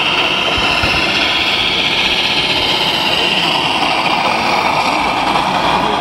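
Scale RC Mercedes-Benz Actros truck's sound module playing a running diesel engine as the truck drives slowly past. The noise is steady, and a second, lower whine joins about halfway through.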